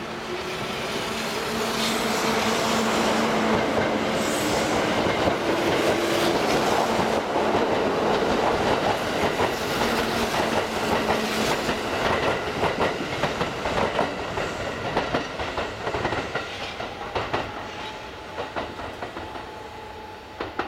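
Kintetsu 21000 series Urban Liner plus electric train running past close by. A whine rises slightly in pitch over the first few seconds, then the wheels clatter over rail joints as the cars go by, and the sound fades near the end.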